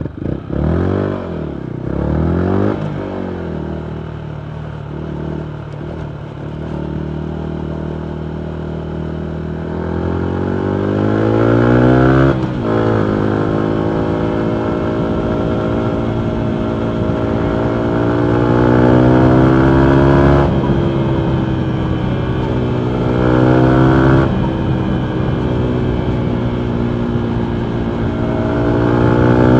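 A 2019 Yamaha MT125's single-cylinder four-stroke engine through a full Akrapovic exhaust. Two quick throttle blips, then it runs low and steady for several seconds before accelerating. The pitch climbs and drops sharply three times as it shifts up through the gears, and it climbs again near the end.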